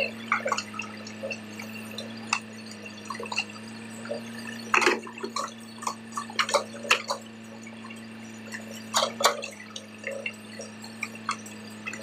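Backhoe's diesel engine running steadily under load while the bucket digs in a pit, with irregular clicks and clatters of soil clods and stones against the bucket, loudest about 5 s and 9 s in.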